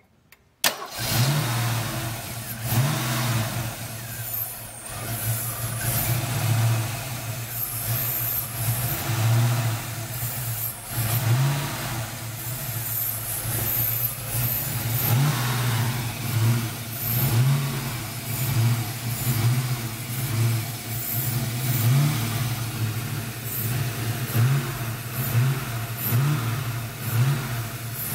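A 302 V8 engine idling roughly, its level swelling and dipping unevenly every second or so. The rough idle appeared after the upper intake was removed and refitted, and its cause is unknown to the owner. The sound comes in suddenly about a second in.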